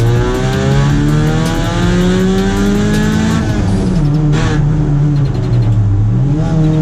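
A rally car's engine under hard acceleration. The revs climb for about three and a half seconds, drop sharply at a gear change, then hold, dip briefly and climb again near the end.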